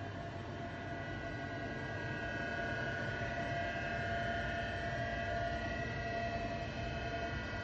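Steady hum of machine-shop machinery: a low rumble with several constant whining tones.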